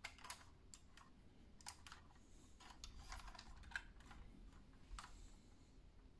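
Faint, scattered small clicks and ticks from a BBurago 1:18 diecast Range Rover Sport model being handled, as its doors are opened on their hinges.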